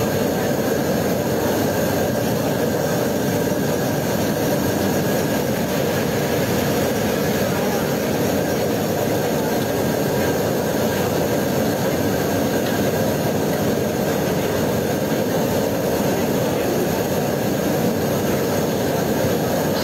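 Steady, loud rushing noise of a commercial frying kitchen, with deep fryers going, unbroken and even throughout.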